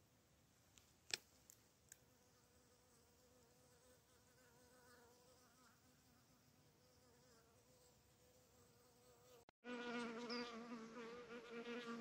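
A bee buzzing in flight, a wavering hum that is faint at first and becomes much louder and closer near the end, after a brief dropout. A sharp click about a second in.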